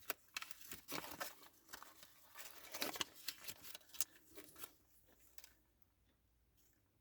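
Paper rustling and crinkling as a folded instruction leaflet is opened out and handled: a quick run of crackles that stops about two-thirds of the way through.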